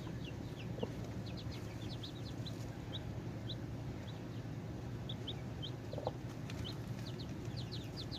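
Domestic chicks peeping in many short, high chirps, with a hen giving a couple of low clucks, about a second in and again about six seconds in, over a steady low hum.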